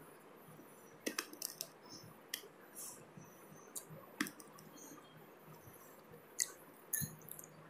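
Faint, scattered clicks and rustles of net lace fabric and its lining being handled and bunched up as the sewn bodice is turned, a few sharper ticks standing out among soft rustling.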